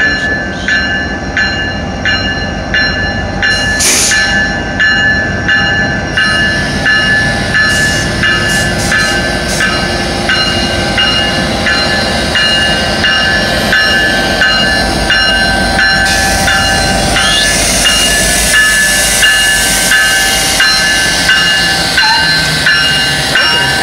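A locomotive bell rings steadily as Norfolk Southern SD70ACE 1126 and the diesel units behind it roll slowly past, their engines rumbling. A hiss of air joins in over the second half.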